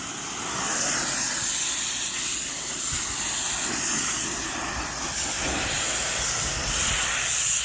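Pressure washer spraying a high-pressure jet of water onto a concrete pool deck: a continuous loud hiss that rises and falls slightly in loudness.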